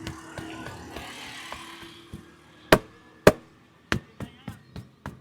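Hand strikes of a barber's percussive head massage: three loud, sharp slaps about two and a half to four seconds in, then lighter, quicker chops about three a second. A wash of street noise fades out in the first two seconds.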